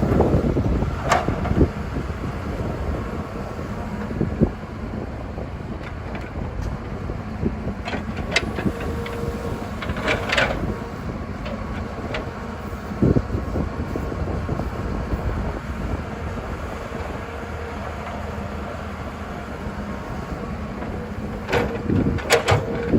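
Excavator diesel engine running steadily with a low rumble, with occasional metallic clanks and knocks from the machine at work.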